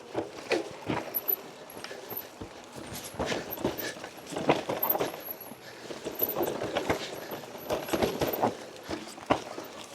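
Mountain bike rattling down a rocky technical trail: an irregular clatter of sharp knocks from the tyres, chain and frame hitting rocks, over rolling tyre noise.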